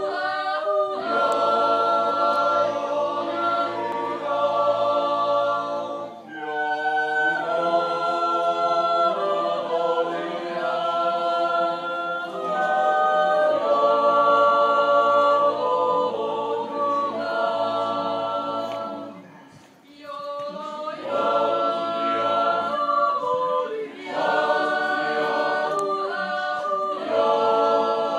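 A Swiss yodel choir of men sings a folk song a cappella in close harmony. They hold sustained chords and change notes in steps, with short breaks for breath between phrases.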